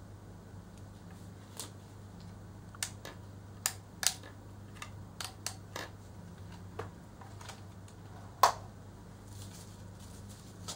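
About a dozen irregular, sharp clicks and taps from handling a hair curler and working a wig by hand, the loudest near the end. A steady low hum runs underneath.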